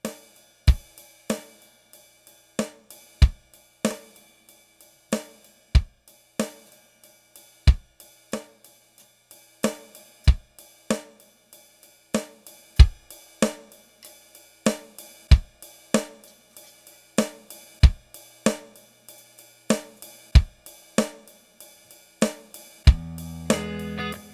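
Electronic drum-pad beat struck with drumsticks: a steady pattern of kick, snare and hi-hat sounds with a heavy kick about every two and a half seconds, which keeps playing on its own as a loop. Near the end a guitar comes in over it.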